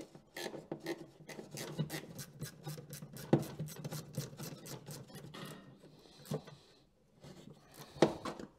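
Quarter-inch drive ratchet clicking in quick strokes as an exhaust bolt is run in. A few sharper knocks of metal tool on metal come about three, six and eight seconds in.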